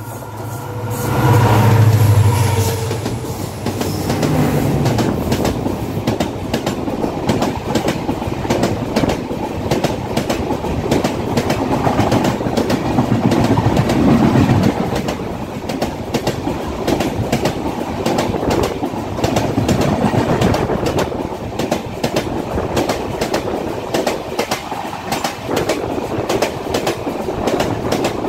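Two trains passing each other at speed on adjacent tracks, heard from the doorway of one. A loud low rumble comes as the oncoming locomotive goes by about two seconds in, then a long rushing noise and rapid clattering of coach wheels over rail joints as the coaches stream past.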